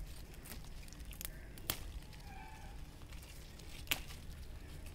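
Amaranth greens picked by hand: leaves rustling, with a few sharp snaps of stems breaking.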